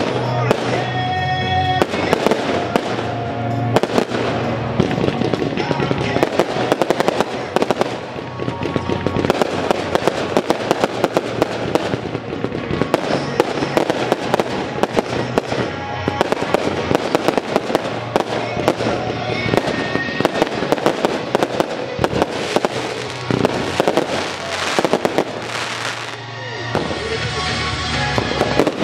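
Aerial fireworks display: a rapid run of shell bursts, many sharp bangs close together, over music. The barrage thins to a brief lull near the end.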